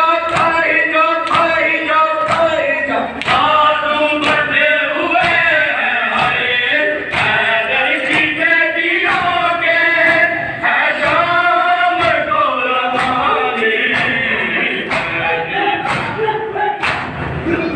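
Group of men chanting a noha, a Shia mourning lament, in chorus, with regular thumps of matam (hands beating on chests) about once a second.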